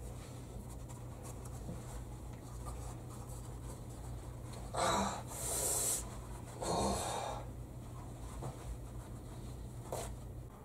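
Toilet paper being pulled off a roll and torn, in a few short rustling bursts about five to seven seconds in, over a faint low hum.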